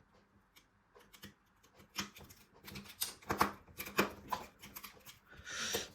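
Plastic Lego pieces clicking and rattling against each other as they are picked through by hand, a string of irregular light clicks.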